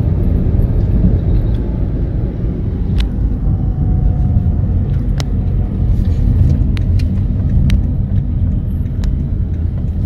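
Car driving along a road, heard from inside the cabin: a steady low rumble of engine and tyres, with a handful of short sharp clicks scattered through the middle and later part.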